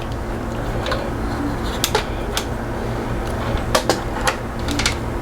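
Light clicks and taps from a digital multimeter and its test probes being handled, scattered irregularly over a steady low hum.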